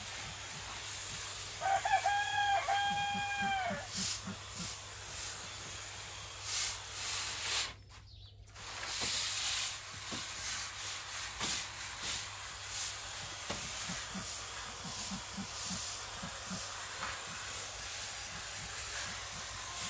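A rooster crows once, about two seconds in, a call of about two seconds in two parts. Hens cluck low and softly under it and again later.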